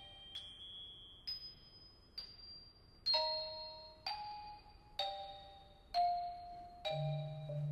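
Tuned mallet percussion playing slow, sparse single notes about once a second, each bright and bell-like and ringing out. A low held note joins near the end.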